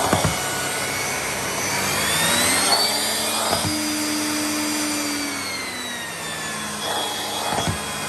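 Miele S6220 cylinder vacuum cleaner running with a steady motor hum and high whine. Its pitch and loudness rise about two seconds in, hold, then drop back about three seconds later. A few short knocks come through.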